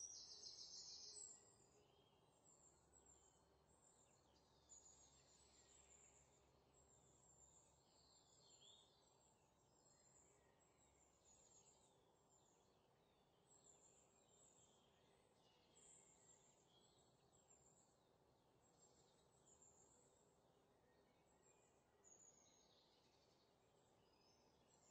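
Near silence, with very faint high chirping in the background.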